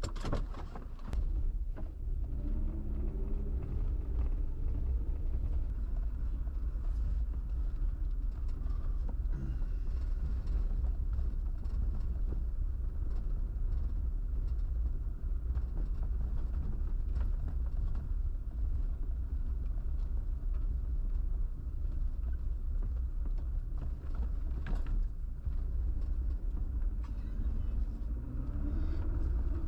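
Car driving along, a steady low engine and road rumble. The engine pitch rises and falls a few seconds in and again near the end.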